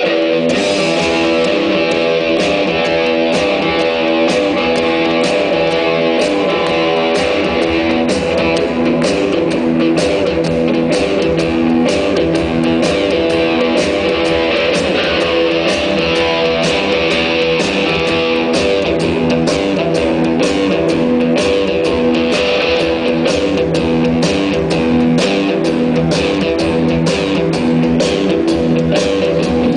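Live rock band playing an instrumental passage: a repeating electric guitar riff over bass, with a steady drum beat and cymbals coming in right at the start.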